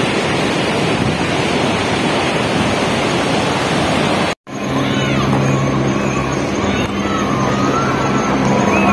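Flood-swollen Swat River rushing past in a loud, steady roar of muddy water. Just before halfway the sound cuts out for a moment, and after that a steady engine hum runs beneath the water.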